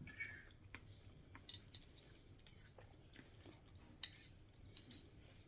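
Faint, scattered clicks of cutlery against a plate, with quiet chewing, in an otherwise near-silent room.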